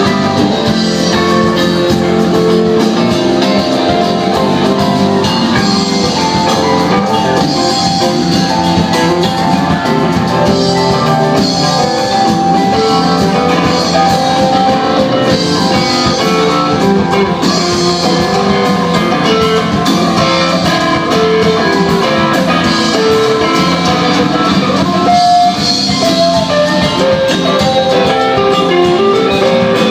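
Live rock band playing, with guitar and drum kit.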